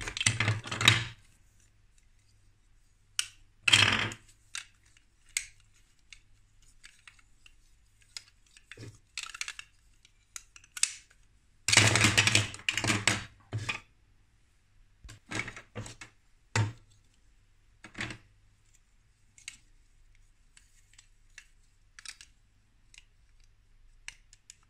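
Plastic Lego Duplo bricks clattering and clicking as they are handled, in bursts with short pauses between. The loudest clatters come at the start and about twelve seconds in.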